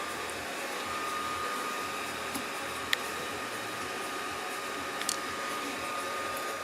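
Modified toaster oven used as a reflow oven, just switched on: a fan runs with a steady rush of air and a steady whine, and there are a couple of light clicks.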